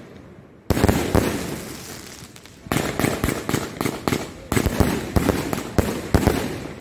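A 120-shot consumer firework cake firing. There is a sharp shot about a second in, then more shots about two seconds apart, each followed by a run of smaller pops as the shells break and fade.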